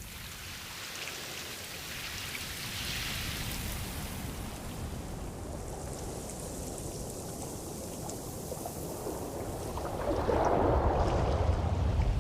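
Ocean waves: a steady hiss of moving water with a low rumble, building into a louder surge about ten seconds in.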